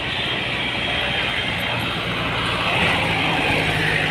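Street traffic noise: vehicle engines running with a steady low hum, swelling briefly about three seconds in.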